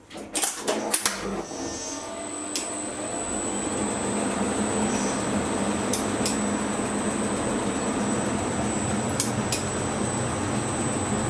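A 1961 Schindler elevator setting off: a quick run of clicks and clunks, then the lift machinery running steadily with a low hum and a thin high whine, growing louder over the first few seconds, with a few sharp clicks further on.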